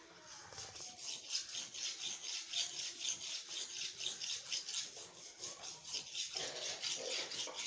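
A steel blade being sharpened on a whetstone: quick, even back-and-forth rasping strokes of metal on stone, several a second.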